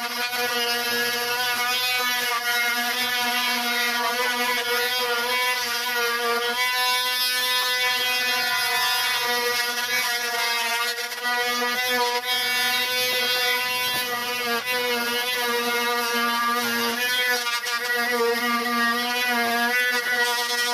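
Small handheld electric grinding tool running continuously against rusty steel, its motor giving a steady whine whose pitch wavers a little as it is pressed and moved along the metal.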